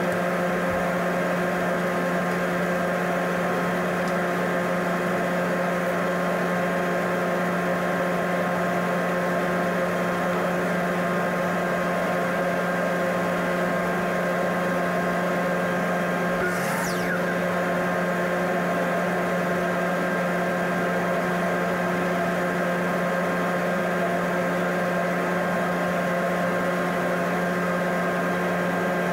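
Steady machine drone: a low hum with several steady higher tones, unchanging throughout. A brief falling swish comes about 17 seconds in.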